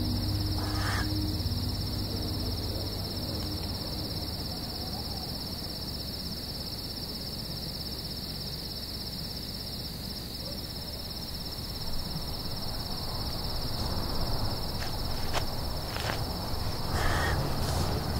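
Steady chorus of crickets trilling over a low drone, with a few held music tones fading out in the first two seconds or so. Near the end, a few short sharp sounds and rustling noise.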